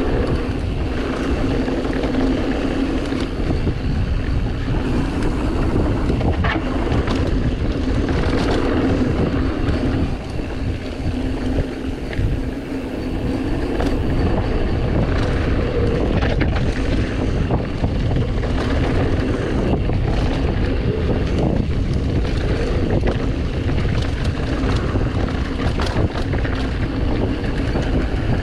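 Wind buffeting the camera microphone while riding a mountain bike downhill on a dirt trail, with scattered knocks and rattles from the bike over rough ground.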